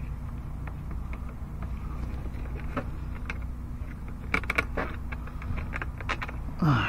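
Light metallic clicks and taps of a bolt and hand tools being handled deep in a car's engine bay, over a steady low hum. A short falling groan from a voice comes near the end.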